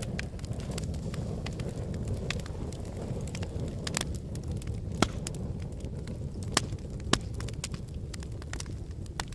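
Wood fire burning in a fireplace: a steady low rush of flames with irregular crackles and sharp pops from the burning logs, the loudest snaps about five and seven seconds in.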